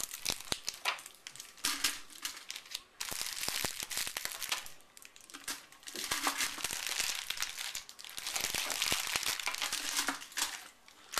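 Wrapped candy being handled and dropped back into a pumpkin bucket: wrappers crinkling and rustling with many small clicks, in stretches with short pauses.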